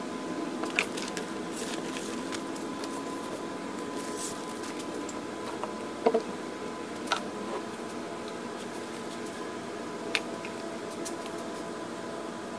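A paintbrush working wet epoxy into fiberglass cloth on a wooden centerboard: soft wet squishing and dabbing, with a few sharp clicks, over a steady background hum.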